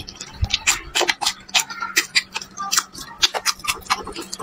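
A plastic spoon clicking and scraping against a bowl of rice and braised meat, picked up close by a clip-on mic: many sharp, irregular clicks and taps, a few a second.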